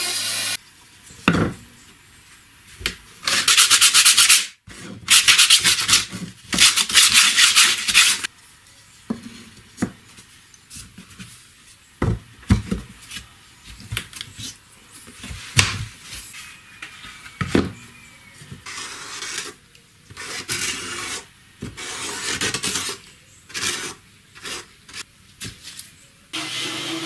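A band saw cutting plywood stops about half a second in; then several seconds of loud abrasive rubbing strokes on wood, followed by scattered knocks and clicks of wooden and plastic parts being fitted and handled on a workbench.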